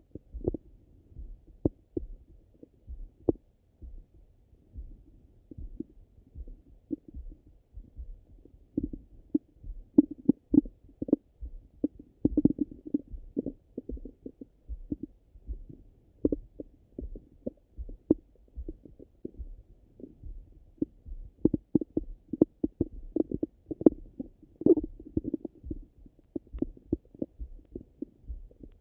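Stomach and bowel gurgling heard through a Littmann stethoscope pressed on the belly, so everything is dull and low-pitched: irregular bubbling gurgles and soft pops, busier from about ten seconds in. It is the active digestion of a stomach rumbling after breakfast.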